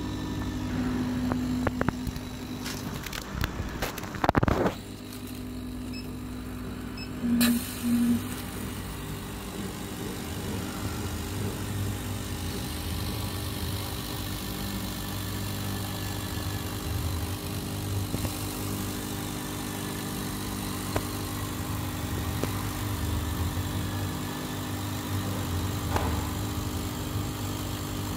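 130 W CO2 laser cutter cutting 9.2 mm acrylic, its machinery giving a steady hum and hiss. The hum comes on with two short beeps about seven and a half seconds in, after a few knocks.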